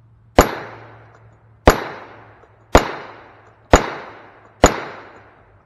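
Five shots from a Freedom Arms Model 83 revolver in .45 Colt, firing 212-grain cast hollow-point handloads, about a second apart. Each shot trails off over about a second.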